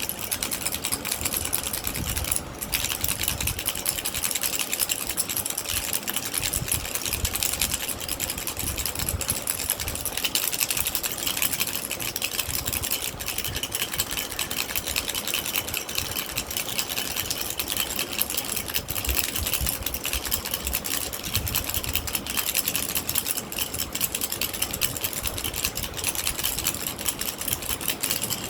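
Baby rattle shaken steadily: a fast, continuous rattling of small loose pieces, with a brief break about two and a half seconds in.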